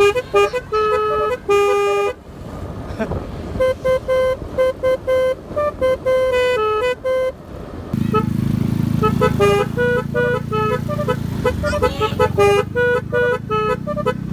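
Basuri telolet horn with snail-shaped (keong) trumpets playing a tune of quick short toots, pausing briefly about two seconds in before starting another run of notes. From about eight seconds in a low steady rumble sits under the horn notes.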